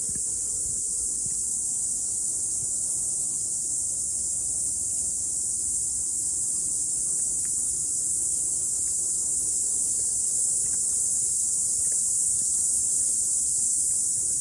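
Cicadas singing in a dense, steady, high-pitched chorus that swells slightly louder toward the end.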